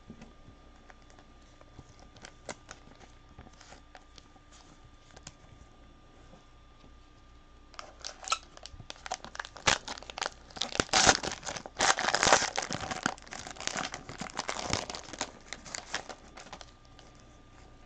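Trading card pack wrapper being torn open and crumpled: a few faint clicks of handling, then dense crackling from a little before halfway until near the end.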